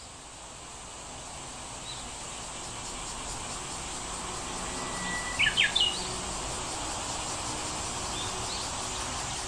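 A bird gives a short, loud burst of three or four sharp calls about five and a half seconds in, with a few faint chirps before and after. Under it runs a steady high hiss like crickets or other insects.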